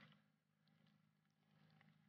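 Near silence: a faint low hum with a few soft ticks.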